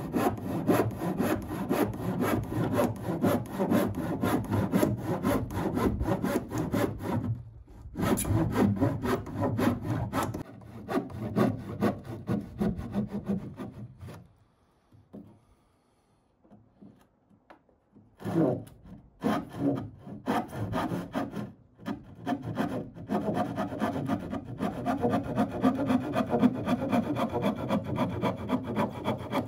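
Hand saw cutting through a wooden roof sheeting board in steady back-and-forth strokes. It pauses for a few seconds about halfway through, then the sawing resumes.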